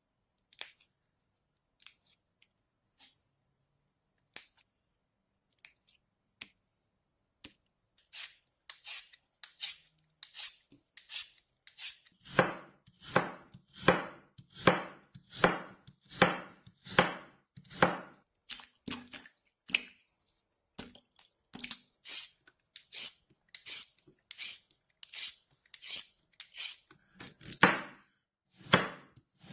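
A kitchen knife cutting vegetables on a chopping board. There are a few scattered light knocks at first, then steady cuts from about eight seconds in, one to two a second and louder after about twelve seconds.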